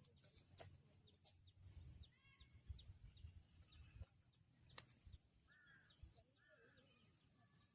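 Faint bird calls, a few short chirps about two seconds in and again near six seconds, over low outdoor background noise.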